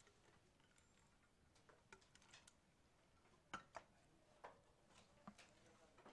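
Students tapping calculator keys: faint, scattered clicks and taps in a near-silent room, with two sharper clicks about three and a half seconds in.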